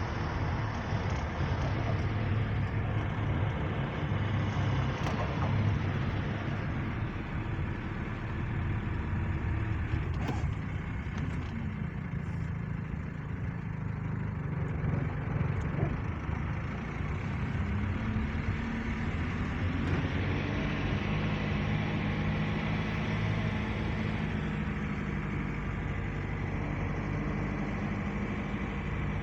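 Steady low rumble of a motor vehicle running, with a steady engine hum that settles in about halfway through.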